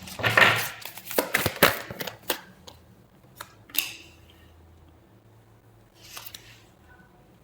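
Tarot cards being handled on a table: a quick run of sharp clicks and papery swishes over the first few seconds, and one more brief rustle about six seconds in.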